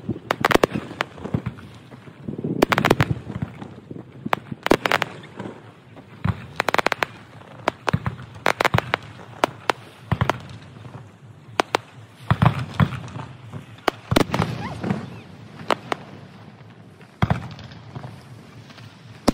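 Fireworks display: a rapid, irregular run of sharp bangs and clustered crackling pops, with several denser, louder volleys.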